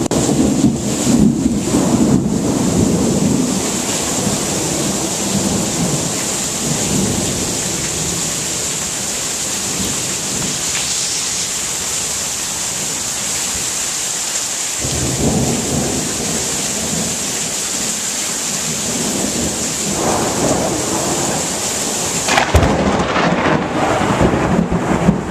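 Steady rain falling through a thunderstorm, with rolling thunder rumbling at the start and building again from a little past halfway. Near the end a sharp crack of close thunder stands out as the loudest moment.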